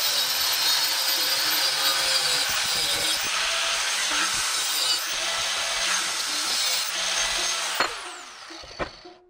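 Angle grinder cutting through the metal housing of a Prius electric power steering column, a loud steady grinding hiss. Near the end it is switched off and the disc winds down with a falling whine, followed by a clunk.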